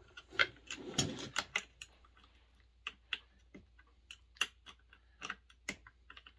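Irregular light clicks and taps of small metal and plastic chainsaw parts and tools being handled during disassembly, with a couple of duller knocks about half a second and a second in.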